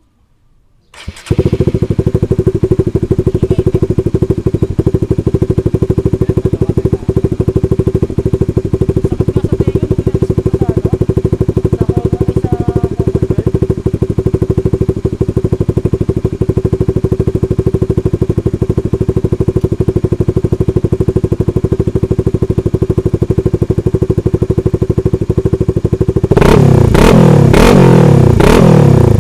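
Honda Supra GTR 150's single-cylinder engine starting about a second in and idling steadily through a Vmax aftermarket exhaust, then revved several times in quick blips near the end.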